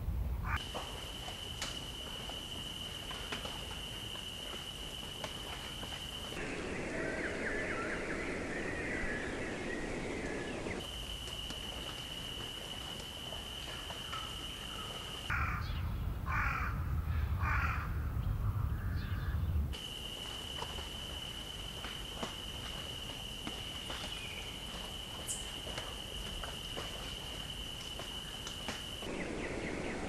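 Birds calling in a series of short recordings joined end to end, the sound changing abruptly every few seconds: some stretches carry a steady high whistling tone, and one stretch in the middle holds a quick run of short harsh calls over a low rumble.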